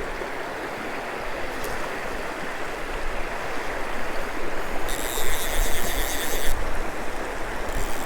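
River current rushing steadily, with a low rumble of wind on the microphone. A brighter, higher hiss comes in twice, about five seconds in and again near the end.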